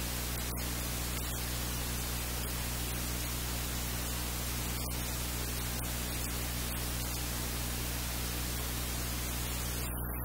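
Steady hiss with a low, even electrical hum underneath.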